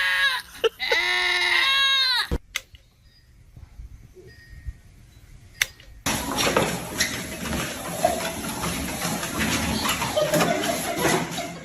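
An animal calling twice in long, drawn-out cries that rise and fall, cut off about two seconds in. After a quiet pause, a loud, even noise without pitch starts about six seconds in and runs until near the end.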